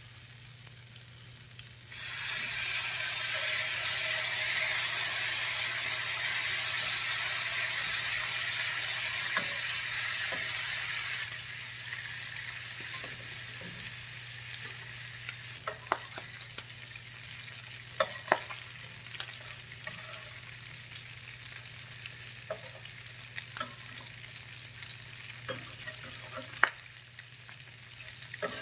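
Seasoned chicken wings hit hot butter in a nonstick frying pan over high heat: a sudden loud sizzle starts about two seconds in and eases after about nine seconds into a steadier, quieter frying. Over the quieter frying come scattered sharp clicks of a spatula scraping and turning the wings against the pan.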